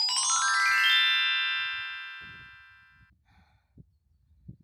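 A chime sound effect: a quick descending cascade of glockenspiel-like bell tones that rings on and fades away over about three seconds before cutting off.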